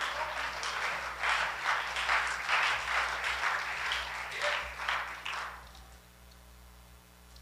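Congregation applauding as the preacher is welcomed to the pulpit, a dense patter of many hands that dies away about two-thirds of the way through.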